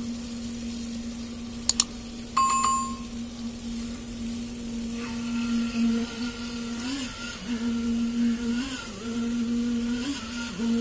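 Concrete poker vibrator running with a steady hum while it consolidates fresh concrete in a footing; its pitch dips briefly a few times in the second half. Near the start come two sharp clicks and a short bell ding from a subscribe-button animation.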